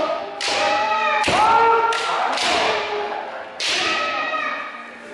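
Kendo sparring: a rapid series of bamboo shinai strikes and bare-foot stamps on a wooden floor, about five in all, each paired with a sharp kiai shout.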